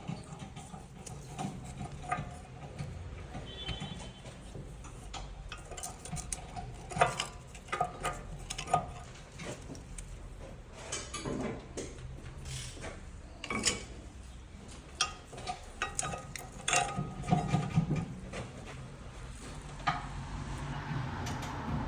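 Irregular metallic clicking and rattling with brief ringing scrapes over a low steady rumble: a car's brakes making noise as it moves, tied to the brake pads.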